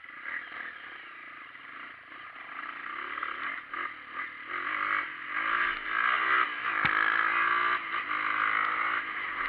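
Off-road motorcycle engine pulling away and accelerating, its revs rising and the sound growing louder through the second half. One sharp click sounds about two thirds of the way in.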